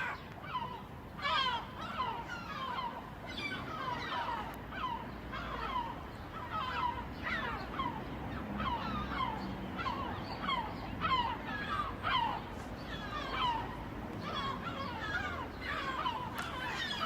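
Seagulls calling over and over, short downward-sliding cries coming several times a second and overlapping.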